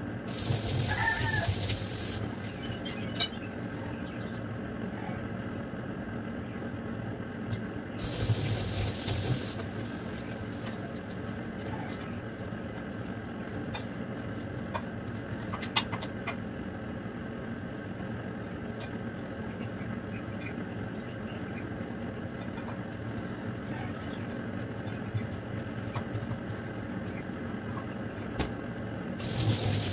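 Tilapia in spiced yellow broth simmering in a wok: a steady bubbling hiss with small pops. Brief louder bursts of hiss come about a second in, around eight seconds in, and again at the very end.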